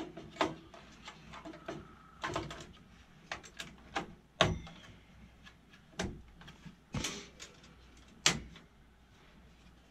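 A graphics card being fitted into a desktop computer's steel case: a string of irregular sharp clicks and knocks as the card is seated in its slot and its bracket is set against the case, the loudest about four and a half and eight seconds in.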